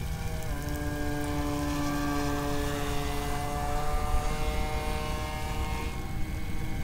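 Electric RC V-hull boat's motor and 42 mm two-blade propeller whining at speed over a low rumble. The whine steps up in pitch about half a second in as the throttle opens and fades near the end.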